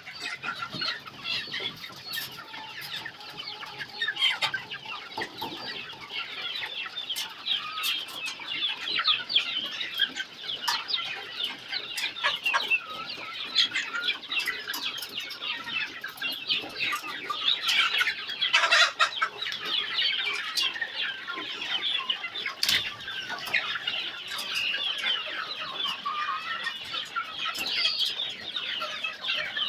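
A flock of young Kari Improved Kienyeji chickens, about two and a half months old, calling and clucking: many short, high calls overlapping without a break, with scattered sharp clicks.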